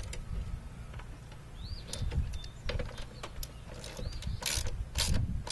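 Clicks, taps and short scraping sounds of hand tools working on a car battery's terminals and cable ends, with a few louder brushing or scraping strokes near the start and towards the end.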